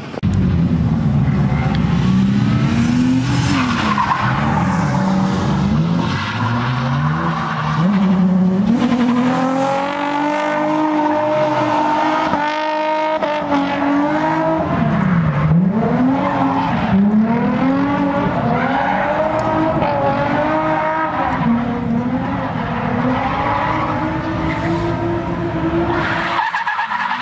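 Nissan 350Z's 3.5-litre V6 engine revving hard and dropping off again and again through drift runs, with tyres squealing and skidding.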